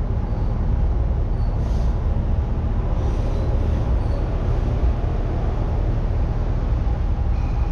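Steady low rumble of city street traffic, with stopped vehicles idling close by.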